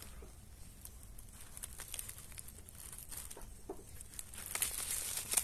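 Hand-held bundle of dry leaf and bark tinder crinkling and crackling as it catches fire, with scattered sharp snaps. The crackling and rustling grow denser and louder near the end as the flame takes hold.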